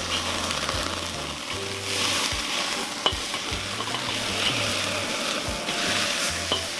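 Ground-beef hamburger patties sizzling steadily over a charcoal grill, with a few sharp crackling pops, the sharpest about three seconds in.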